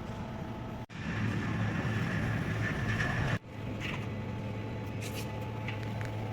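Steady electrical hum and hiss of a running fiber laser welding machine, cutting out abruptly twice.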